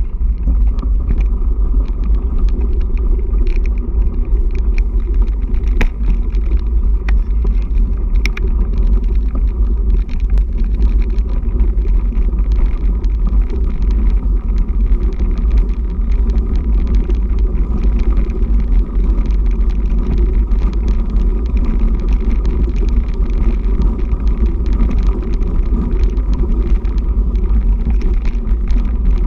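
Steady rolling rumble of a mountain bike riding over a gravel course path, picked up by a camera mounted on the bike, with scattered small clicks and rattles in the first several seconds.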